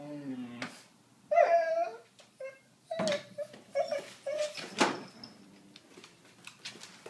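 A dog whining and yipping: a wavering whine at the start, a loud high cry about a second and a half in, then several short yips. A couple of sharp knocks come around three and five seconds in.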